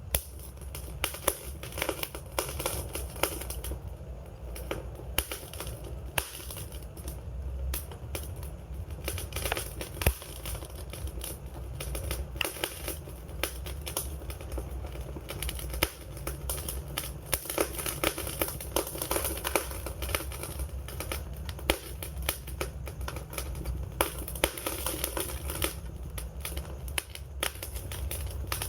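Wood campfire crackling, with frequent sharp pops and snaps over a steady low rumble and hiss of the burning flames.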